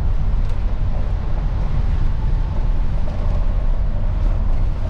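Steady low rumble of a Wrightbus StreetDeck double-decker bus running, heard from inside the passenger saloon. A faint steady whine joins about three seconds in.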